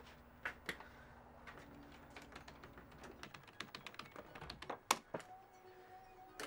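Irregular clicks and taps of switches and controls on a mixing console and radio gear being worked by hand, with a couple of sharper knocks about five seconds in. A faint steady tone comes in shortly after.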